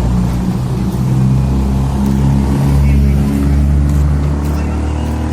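A motor vehicle's engine running steadily, its pitch shifting a little as it goes.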